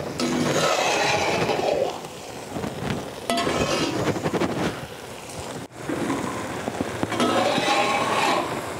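A long spoon stirring and scraping grated ash gourd around a metal uruli pan, with clinks against the pan's side.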